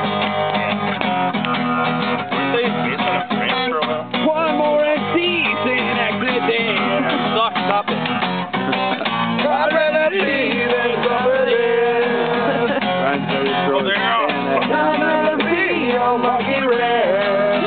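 Loud guitar-led music that plays without a break.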